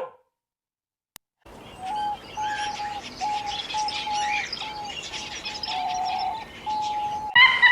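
Birds singing and chirping, with a run of short, even whistled notes over high chirps and a faint outdoor hiss. Near the end a louder animal call with a wavering pitch cuts in.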